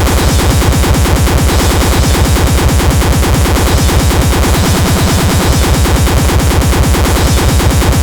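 Loud electronic music with a fast, driving beat.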